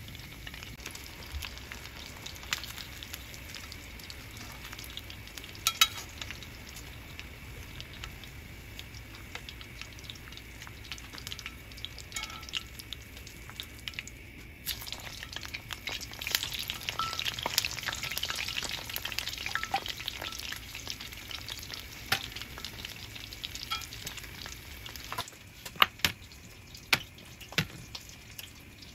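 Hot oil sizzling and crackling as rolls deep-fry in a cast iron pot, louder for a few seconds past the middle, with sharp clicks scattered through it and several near the end.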